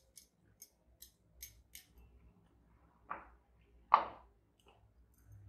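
Plastic spoon clicking lightly against a ceramic bowl, about two clicks a second, as flour batter is stirred; then water is poured in from a plastic jug in two short splashes about three and four seconds in, the second louder.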